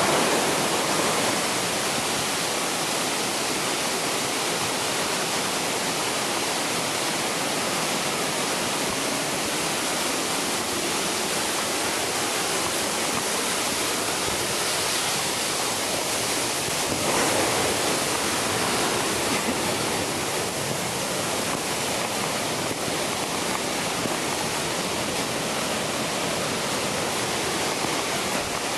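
Steady rush of a waterfall and the whitewater creek below it, Spahats Falls, swelling slightly a little past halfway.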